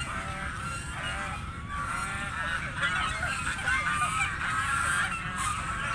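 Several geese honking and calling over one another without a break, growing a little louder about three seconds in.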